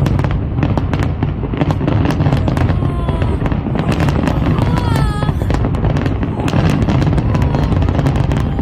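Fireworks bursting in a dense, continuous string of pops and crackles over a steady low rumble, with a few voices from the crowd in between.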